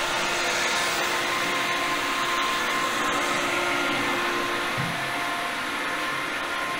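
Steady whirring drone of running shipboard machinery, with a constant hum in it.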